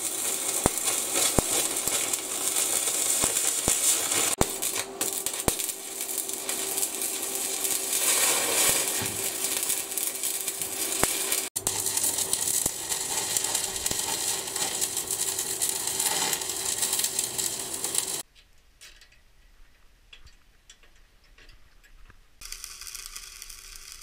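Electric arc welding on a scrap-metal frame: the arc's steady crackling sizzle with a faint steady tone under it. It cuts off suddenly about 18 seconds in and starts again more quietly near the end.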